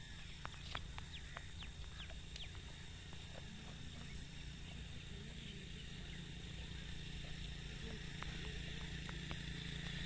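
Open-field ambience: a steady low wind rumble on the microphone, with scattered faint short bird chirps and ticks in the first few seconds.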